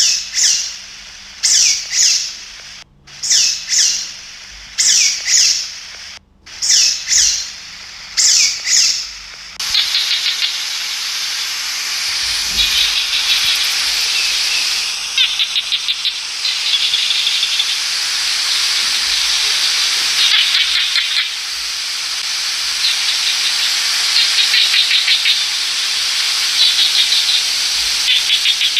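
Sea otter squealing: a run of short high-pitched squeals, roughly one a second. About ten seconds in, they give way to a steady hiss with repeated bursts of fast, high chirping.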